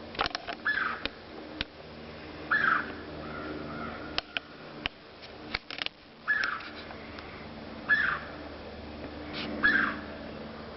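Five short, harsh calls from an unseen animal that the recorder takes for a bird, coming at uneven intervals a second and a half to four seconds apart. A few sharp clicks fall between them, mostly in the first half.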